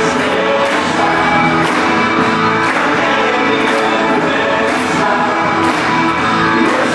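A worship song: many voices singing together over music with a steady beat.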